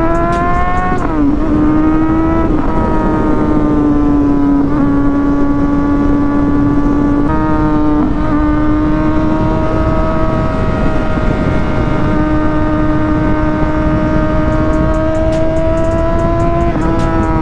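Sport bike engine and exhaust running at a steady cruise: the revs climb in the first second, dip briefly a few times, and otherwise hold nearly level, over a rush of wind and road noise.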